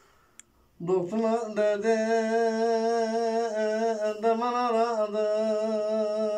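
A man singing an uzun hava, a Turkish free-rhythm folk song, unaccompanied. After a short pause he comes in about a second in on a long held note, ornamented with wavering turns.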